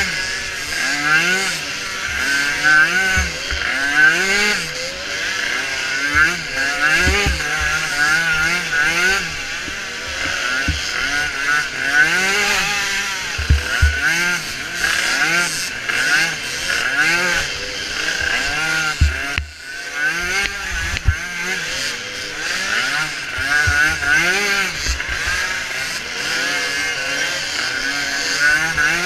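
Small micro ATV engines revving up and down again and again, their pitches overlapping as several machines race, with occasional low thumps.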